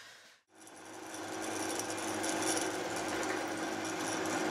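Benchtop drill press running, its twist drill cutting into a metal block held in a machine vise: a steady motor hum with cutting noise that starts about half a second in and builds up over the next second.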